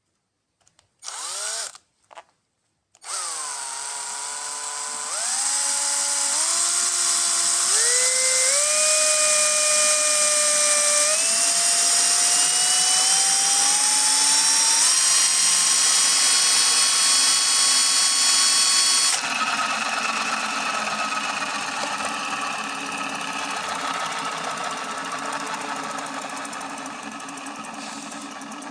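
Electric drill motor running: two short blips, then a whine that climbs in pitch in several steps as the speed is raised. About 19 s in it changes abruptly to a rougher, noisier whirr that gradually gets quieter before stopping.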